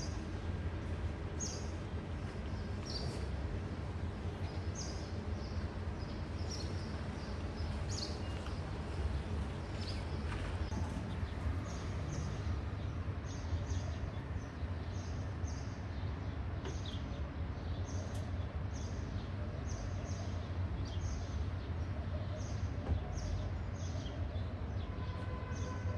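Small birds chirping, short high chirps repeated irregularly about once or twice a second, over a steady low rumble of outdoor background noise.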